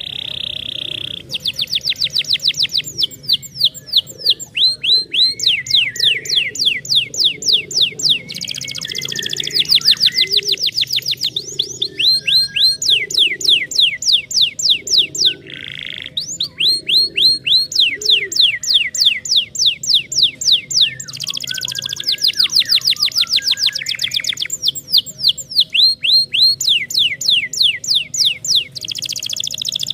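Domestic canary singing a long, loud song of rolling trills, each made of fast repeated falling notes, switching to a new trill every couple of seconds.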